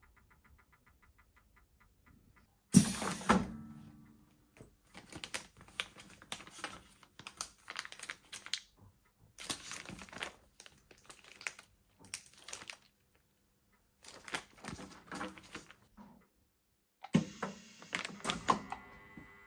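Clear plastic bags crinkling and rustling in irregular stretches as they are handled and laid on the bag sealer's support, with clicks among them. A sharp knock about three seconds in is the loudest sound, and a second knock comes near the end.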